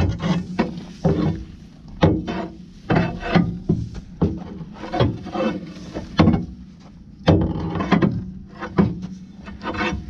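A metal bar jabbing and scraping into hard-packed gumbo mud and straw that plugs a ditcher. About eighteen irregular strikes, each a sharp hit followed by a short gritty scrape, as the caked mud is picked loose.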